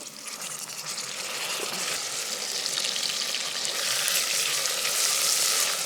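Food frying in hot oil in a pan: a dense, crackling sizzle that starts suddenly and grows louder.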